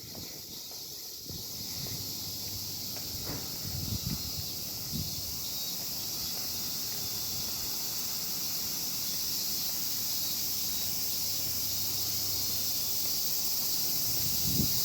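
Cicada chorus, a steady high-pitched shrilling that grows slowly louder, with a few low buffets of wind on the microphone.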